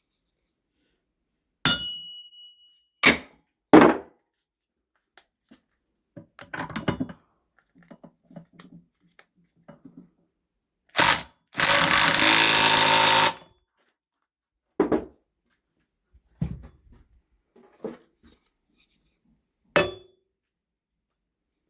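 Hammer blows on a cheap steel anvil, single strikes spread out, the first leaving a high ring hanging briefly. About halfway through, an impact wrench runs in one burst of about two seconds.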